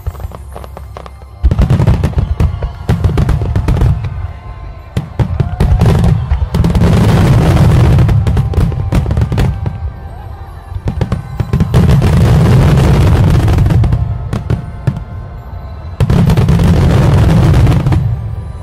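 Fireworks display: deep bangs and dense crackling come in four loud waves, each lasting a few seconds, with quieter gaps between them.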